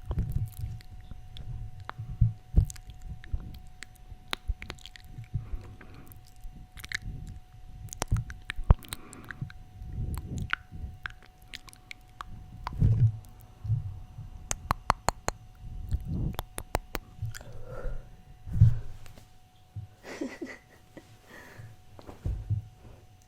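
Close-up ASMR trigger sounds right at the microphone: irregular sharp clicks and soft low thumps, with a short breathy stretch near the end.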